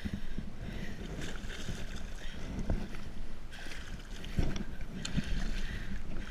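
Wind buffeting the microphone, with water sloshing against a kayak hull and a few sharp knocks, the loudest about two and a half and four and a half seconds in.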